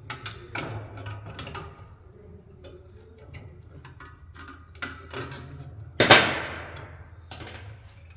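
Small metallic clicks and knocks of rear drum brake hardware (shoes, springs, hold-down pins) being worked off, with one loud ringing metal clank about six seconds in.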